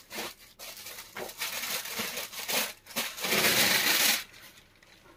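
Fabric and plastic packaging rustling and crinkling as an unstitched suit is unfolded by hand, with a louder stretch of about a second some three seconds in.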